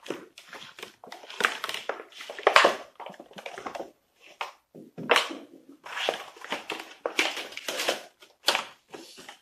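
Stiff clear plastic clamshell packaging crackling and crinkling in irregular bursts as it is pulled open by hand and the light is drawn out of it.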